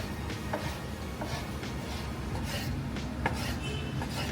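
Kitchen knife cutting on a wooden chopping board: a few scattered, irregular cuts and scrapes over a low steady hum.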